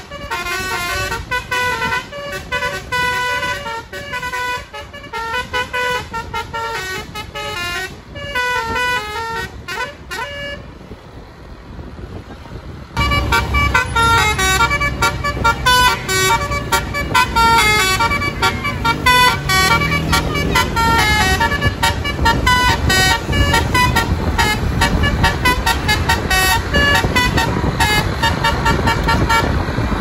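Tour bus's basuri musical horn playing a tune in quick stepped notes. It breaks off briefly about ten seconds in, then comes back louder over a low engine rumble.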